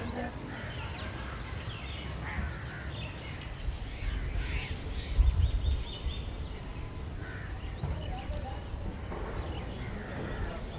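Birds chirping and calling with many short, repeated chirps, over a low rumble that swells about four to six seconds in.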